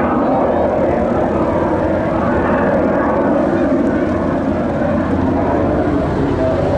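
A propeller aircraft's piston engine running loud and steady as the plane flies past.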